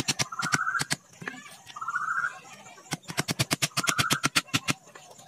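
Hammer driving nails into bamboo strips: a short run of quick taps at the start, then a longer run of about a dozen about three seconds in. A bird coos in the pauses.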